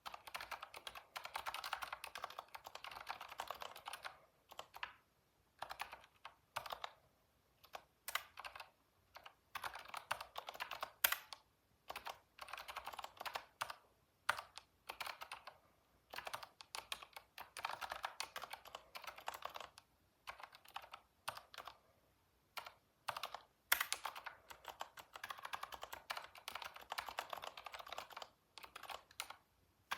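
Typing on a computer keyboard: quick runs of keystrokes broken by pauses of about a second, with a few single, louder key strikes.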